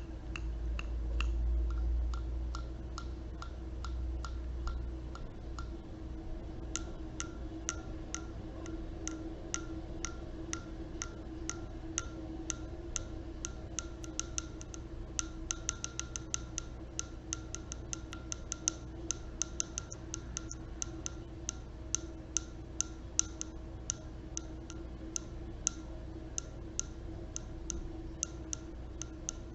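Light, quick tapping on a hard object, several sharp clicks a second, growing denser and more even after the first few seconds. A faint steady hum runs underneath, and there is a low rumble in the first few seconds.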